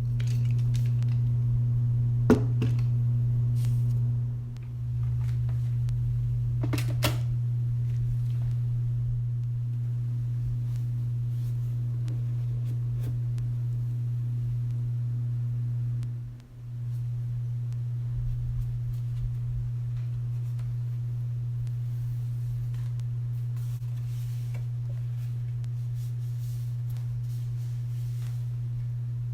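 A steady low hum, a single tone with a fainter overtone above it, that dips out briefly twice, with a couple of light clicks about two and seven seconds in.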